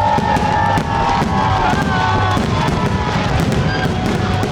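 A fireworks display goes off as a rapid, continuous crackle of bursts, with music playing along.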